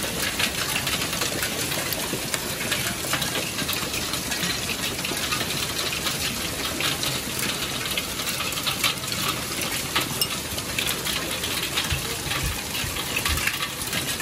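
Severe hailstorm: a dense steady hiss of hail and rain, with a constant scatter of sharp ticks and clicks as hailstones, some over an inch across, strike the gravel and garden furniture.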